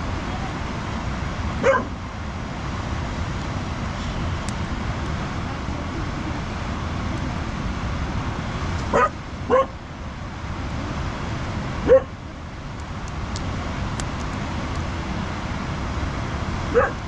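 A dog barks five times, in short single barks spaced several seconds apart, two of them in quick succession about nine seconds in. Under the barks runs a steady noisy rush.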